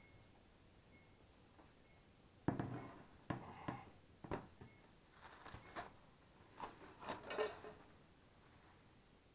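A metal roasting tray set down with a knock on a glass-ceramic hob, followed by light clicks and the crinkle of plastic cling film being peeled off the tray.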